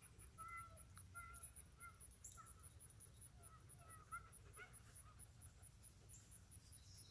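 Near silence with faint, short, high chirping calls every half second or so, over a faint, fast, steady high ticking.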